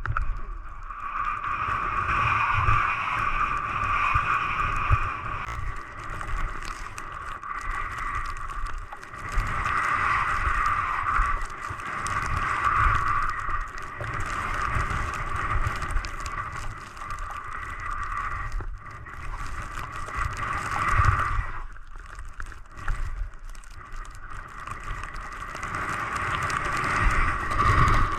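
Skis running through heavy, wet snow, with wind buffeting the GoPro's microphone. The sound swells and eases several times, with short quieter dips.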